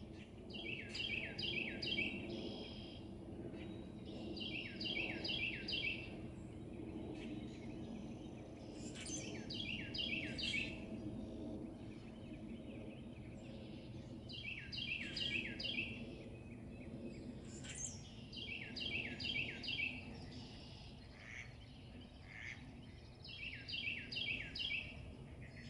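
A songbird singing the same short phrase six times, about every four to five seconds, each phrase a quick run of about five notes that fall in pitch. A steady low rumble runs underneath.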